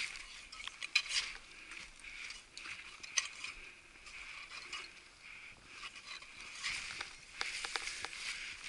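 Irregular crunching and scraping of a climber's boots and tools biting into snow, over a steady hiss.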